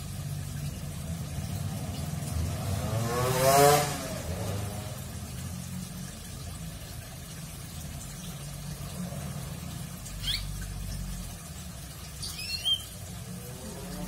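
A motor vehicle passes close by over a low traffic hum, its engine note climbing to the loudest point about three and a half seconds in, and another starts to approach near the end. A young canary gives a couple of short, quick chirps about ten and twelve seconds in.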